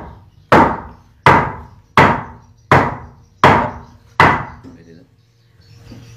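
Loud, regular knocks like blows on wood, one about every three-quarters of a second, six in a row, each ringing briefly, then stopping about four and a half seconds in.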